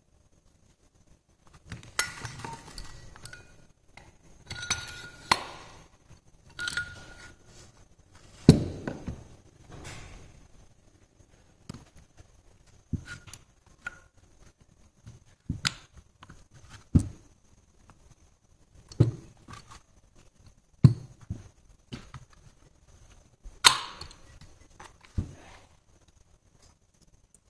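Metal parts of a teaching-model tractor differential being handled during assembly: a steel axle shaft slid through the wheel hub into the gear housing, with irregular clinks and knocks of metal on metal, a few ringing briefly. The heaviest knock comes about eight seconds in.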